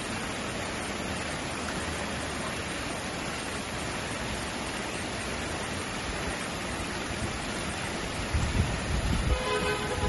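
Campus water fountain splashing, a steady even rush of falling water. Near the end, gusts of wind buffet the microphone and faint steady tones come in.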